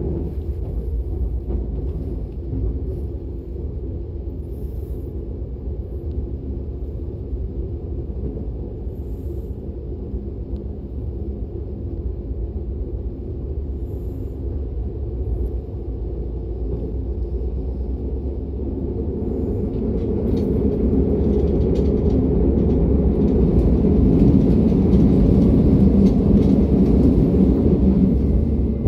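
Running noise of a DB Class 425 electric multiple unit heard from inside the passenger car: a steady low rumble that grows louder and fuller from about two-thirds of the way in as the train picks up speed.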